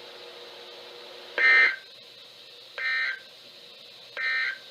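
Three short bursts of NOAA Weather Radio SAME digital data tones, a warbling buzz each about a third of a second long and spaced about a second and a half apart: the Emergency Alert System End Of Message code closing the alert broadcast.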